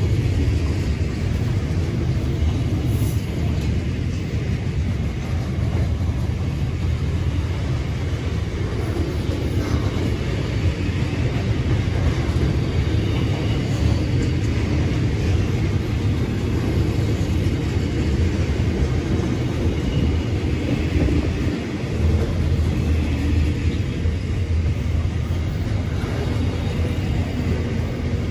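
A long freight train's wagons rolling past at steady speed: a continuous rumble of steel wheels on the rails, even in loudness.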